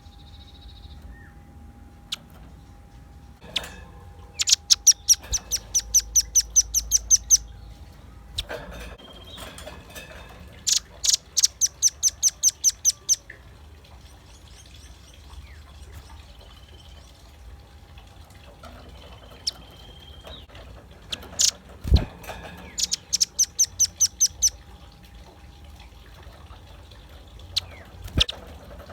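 Velvet-fronted nuthatch calling: three bursts of rapid, high, sharp notes, about six a second, each burst lasting two to three seconds, with a fourth starting at the very end. A single loud, sharp click comes just before the third burst.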